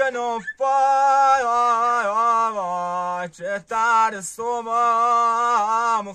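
A man singing a slow melody in long held phrases that slide and waver in pitch, with two short breaks for breath. A wooden end-blown flute plays along with him.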